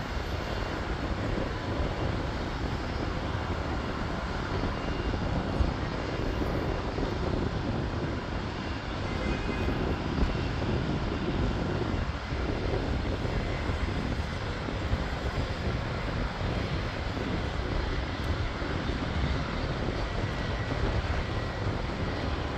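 Business jet engines heard at a distance: a steady, even rush of jet noise that neither rises nor falls.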